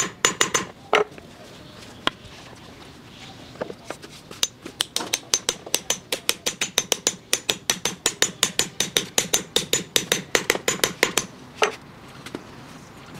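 A steel hammer taps a metal ball bearing down onto a wooden post, metal striking metal with a ringing click on each blow. There are a few separate strikes at first, then a fast, even run of light taps for about seven seconds, and one last strike near the end.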